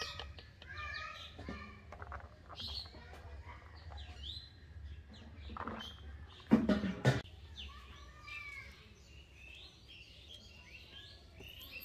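Small birds chirping repeatedly, short high calls scattered throughout, with a brief louder burst of sound about halfway through.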